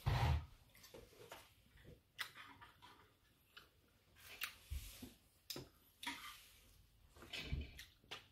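Eating sounds at a table: chewing, with scattered light clicks and taps as a fork and fingers work at a roast chicken.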